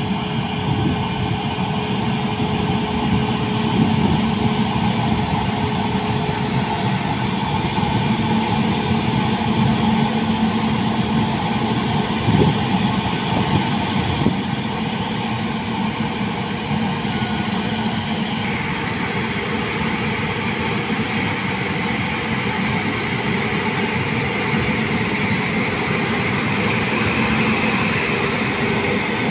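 Two WAG-9HC electric locomotives coupled back to back, hauling a freight train slowly past: a steady hum with rolling noise from wheels on rail. A single sharp knock comes about twelve seconds in.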